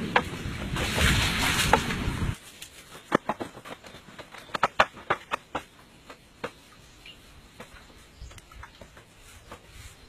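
Bamboo knocking and clacking as it is handled: a few hollow knocks over a steady rush of outdoor noise, then, after a sudden cut about two seconds in, a quieter run of sharp clicks and taps as bamboo poles are worked by hand, thinning out near the end.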